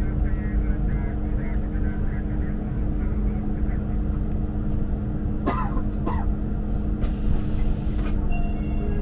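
Interior of a KTM ETS 93 Class electric multiple unit train running: a steady low rumble with a constant motor hum. A short hiss comes about seven seconds in.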